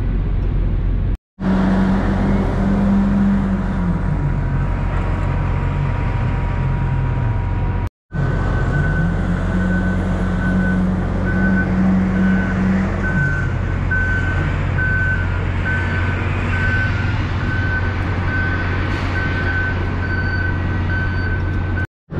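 Vehicle engines running over a steady low hum, one engine note dropping and climbing again twice. A high beep repeats on and off through the later part, like a vehicle's reversing alarm.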